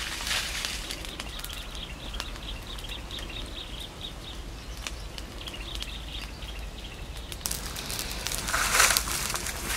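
A pile of dry leaves being lit and catching fire, rustling and crackling, with a louder rush of noise near the end as the flames take hold. A few seconds in, a bird calls in the background with a quick run of repeated high notes.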